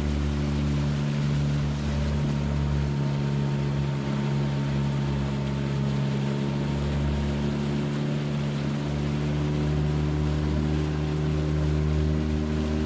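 A small river boat's motor running steadily under way, a constant even drone, with water rushing past the hull.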